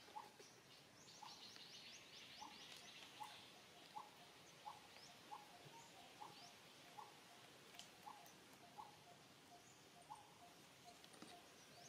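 Faint outdoor bird calls: a regular series of short, rising notes a bit more than once a second, with a flurry of quick high chirps in the first few seconds.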